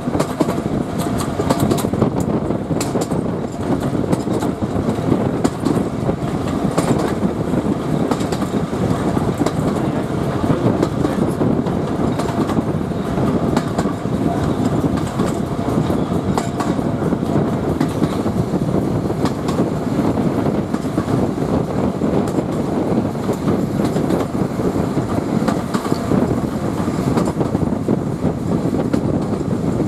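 Heritage train coaches running along the line, heard from an open coach window: a steady rumble of steel wheels on rail with scattered clicks from the rail joints.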